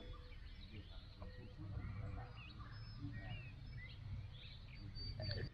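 Small birds chirping and calling, with many short notes throughout, over a steady low rumble.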